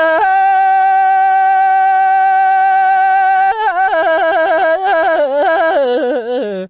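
One voice singing a Tibetan song. It holds a single high note very steadily for about three seconds, then breaks into fast ornamented turns that wobble up and down, sinking lower near the end.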